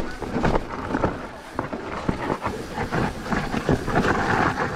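Mountain bike rattling over a rough trail: a dense run of irregular knocks and clatters from the frame, chain and wheels, with wind buffeting the camera microphone.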